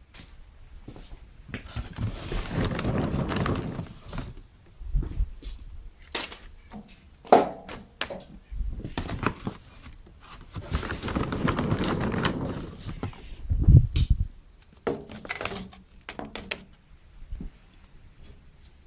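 Paper bag of Kingsford Original charcoal briquettes rustling and crinkling as it is handled and torn open at the top, in two long stretches, with scattered knocks and clicks between and after.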